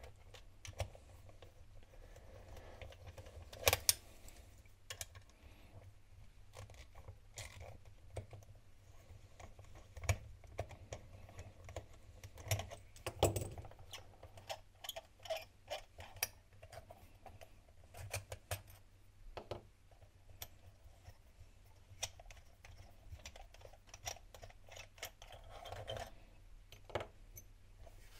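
Scattered small metal clicks and clinks as the screws holding a 12 V Shurflo water pump motor's body together are undone by hand and the metal motor casing is handled and worked apart.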